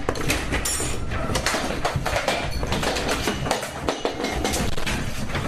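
Continuous dense rattling and knocking over a steady low rumble, as objects shake during an earthquake.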